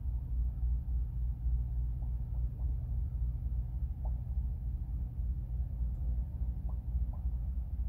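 Steady low rumble with a few faint short chirps about halfway through and near the end.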